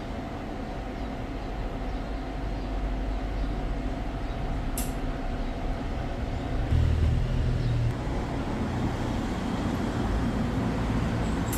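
Steady mechanical hum from equipment running during a car air-conditioning refrigerant service, with a single sharp click about five seconds in and a louder, deeper hum for about a second from around seven seconds.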